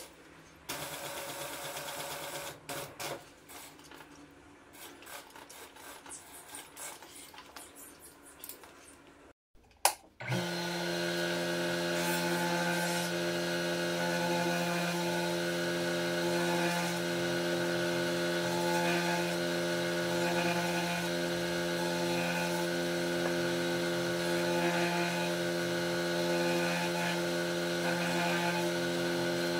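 Post-bed sewing machine stitching leather in short runs. After a brief pause about a third of the way in, it gives way to the motor of an electric leather edge burnishing machine, which starts suddenly and runs with a steady, even hum while a card holder's edges are worked against its spinning grooved wheel.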